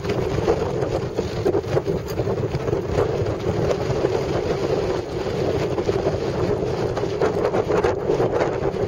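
Wind buffeting the camera microphone: a steady rushing rumble with frequent small crackles.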